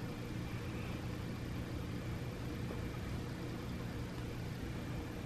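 Steady low hum with a faint hiss: indoor background noise with no distinct events.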